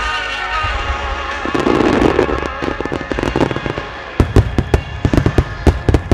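Starmine fireworks barrage: aerial shells bursting with sharp bangs over accompanying music, ending in a rapid volley of loud cracks in the last two seconds.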